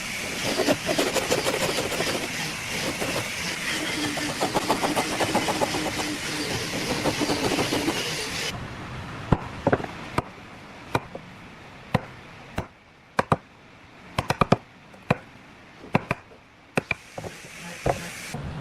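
Workshop tool noise: a loud steady hiss for about eight seconds that cuts off suddenly, followed by a series of sharp knocks, roughly one a second.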